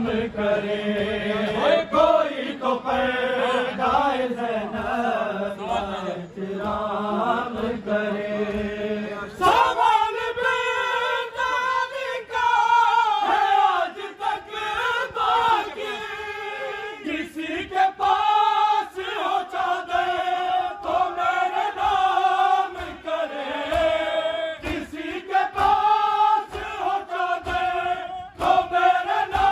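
A crowd of men chanting a Shia noha in unison, with palms beating on chests (matam) in rhythm. About ten seconds in, the chant jumps higher and louder.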